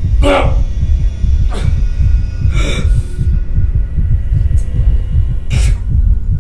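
A heavy, low, throbbing rumble like an amplified heartbeat, used as film sound design. Four short hisses sound over it.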